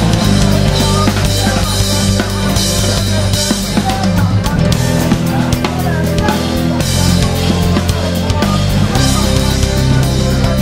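Live instrumental jazz-fusion trio of electric guitar, electric bass and drum kit. The guitar plays single-note lines over a moving bass line, while the drums keep time with kick, snare and a wash of cymbals.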